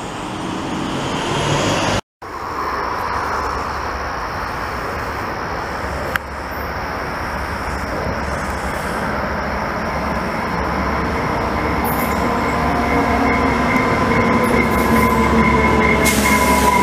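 Locomotive-hauled bilevel commuter train approaching along the track and passing close, its rumble building steadily louder. In the last few seconds steady whining tones join in and dip slightly in pitch as the locomotive goes by.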